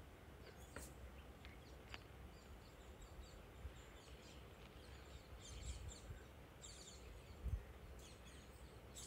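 Near silence: faint outdoor garden ambience with a few faint bird chirps in the second half and a soft low thump near the end.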